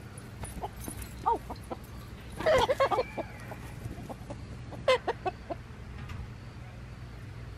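Chickens clucking and squawking as they are chased around their pen, with a loud burst of squawks midway and another sharp squawk a couple of seconds later.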